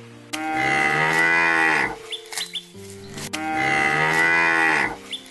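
Cow mooing: two long moos, each drawn out for about a second and a half and dropping in pitch at the end.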